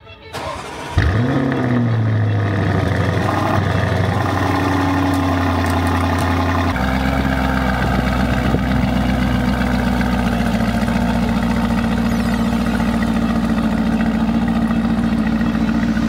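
Lamborghini Urus's 4.0-litre twin-turbo V8 starting about a second in, revving up briefly and then settling into a steady idle. About seven seconds in, the exhaust note shifts to a deeper, steadier sound.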